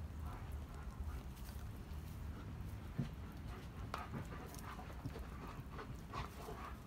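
Hens pecking oatmeal from a wooden trough: irregular taps and clicks of beaks striking the wood, with one louder knock about three seconds in, over a low steady hum.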